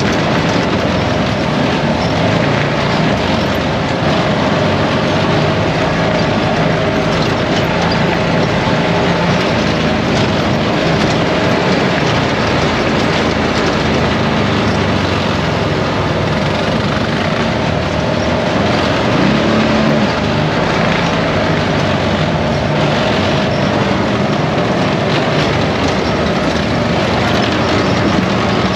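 An ATV engine running steadily while riding the trail, loud and unbroken.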